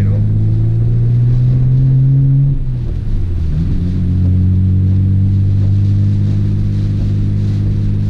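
Nissan R32 Skyline GT-R's twin-turbo straight-six heard from inside the cabin, running under way with its pitch rising slightly, then falling away briefly about three seconds in before settling and holding steady.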